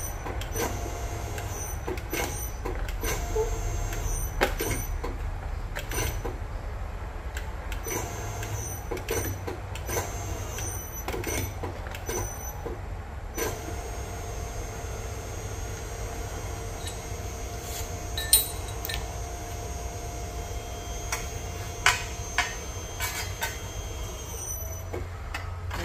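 Nargesa CC90 tube bender bending aluminum square tubing: a steady low machine hum with scattered clicks and clanks of the tube and tooling. From about halfway through to near the end a steady whine sounds while the machine makes a bend, with two sharp knocks a few seconds apart.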